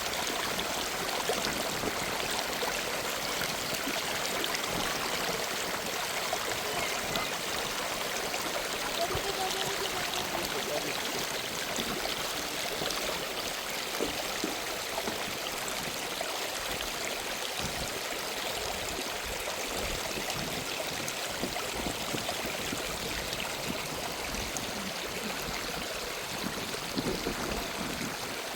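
A stream of water running, a steady unbroken rush of flowing water.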